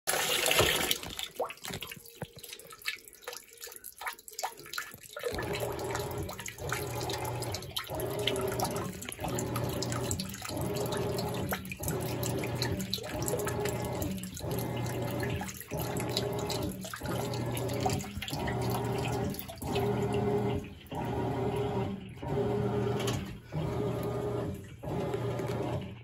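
Top-loading washing machine with an agitator: water sounds at first, then about five seconds in the motor starts agitating. The drive hums and swishes the water and clothes, reversing direction about every 1.3 seconds in a steady rhythm.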